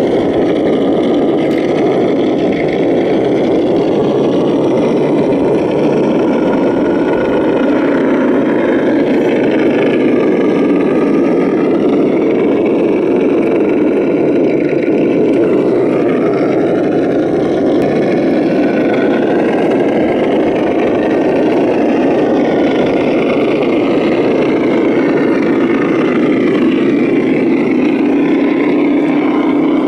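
Radio-controlled Ford F-350 scale truck running continuously with a steady engine sound, its pitch wavering with the throttle as it crawls through mud and water.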